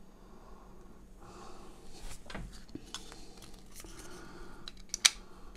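Hands handling a small plastic wireless earbud and its charging case: soft rubbing and light plastic taps, with one sharp click just after five seconds as the earbud is set into the case.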